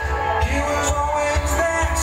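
Music with a singing voice, a held, gliding melody over a heavy low bass.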